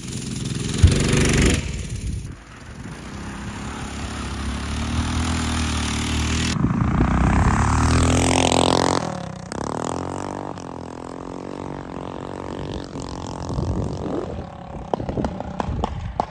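Predator 212 single-cylinder four-stroke engine on a mini bike, run with its governor removed and a 22mm carburettor fitted, revving hard as the bike accelerates, its pitch climbing steadily. About nine seconds in the pitch drops and the engine note carries on lower and fainter as the bike moves away.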